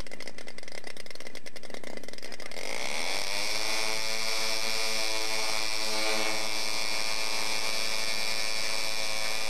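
Engine of a radio-controlled B-25 model aircraft running with its propeller turning, revving up from a lower speed about two and a half seconds in and then held at a steady high pitch.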